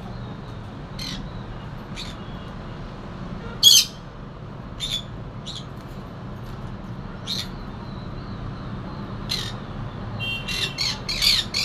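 Conure parrot giving short, harsh squawks, single calls every second or two with the loudest near four seconds in, then a quick run of squawks near the end, over a steady low background hum.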